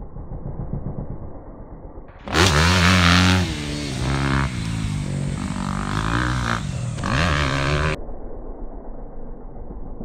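Yamaha YZ250F dirt bike's 250 cc four-stroke single-cylinder engine revving as the throttle is opened and shut, its pitch rising and falling several times. Moderate at first, loudest from about two seconds in, then duller and quieter again near the end.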